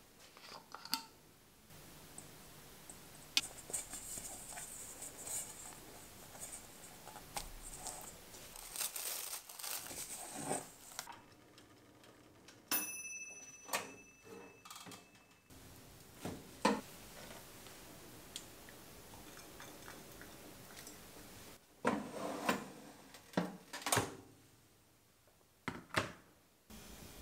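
Quiet kitchen handling sounds: scattered clicks and knocks from a metal mixing bowl and the opening and closing of a Cuisinart air fryer toaster oven's door. About halfway through there is a short ringing ding, and a cluster of sharper knocks comes near the end.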